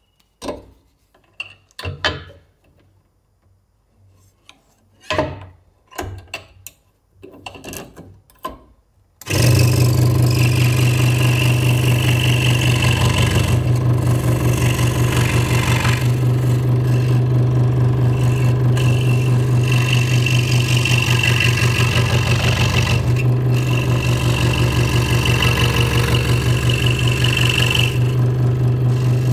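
A few clicks and knocks as the blade is handled and clamped, then, about nine seconds in, a Hegner Multicut 2S scroll saw starts suddenly and runs steadily, its blade cutting wood, with a low hum and a high whine that comes and goes.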